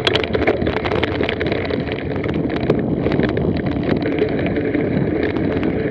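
Mountain bike rolling along a dirt and sand trail, picked up by a bike-mounted action camera: a steady rumble of tyres with many small clicks and rattles from the bike, mixed with wind on the microphone.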